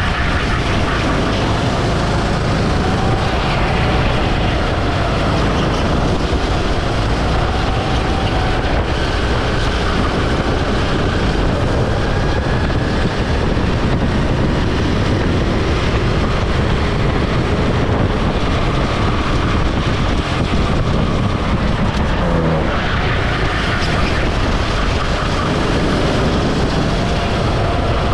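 Onboard kart at racing speed: a steady rush of wind and road rumble on the kart-mounted camera, with the kart engine's faint whine rising and falling as it accelerates out of corners and lifts for braking.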